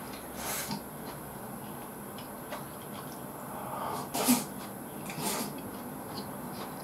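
A man eating close to the microphone: chewing, with short noisy mouth and chopstick-and-bowl sounds as he brings food from a bowl held at his lips, the loudest about four seconds in.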